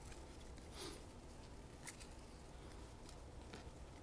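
Faint rustle of 1990-91 Upper Deck hockey cards being slid and flipped through by hand: a few soft swishes of cardboard on cardboard.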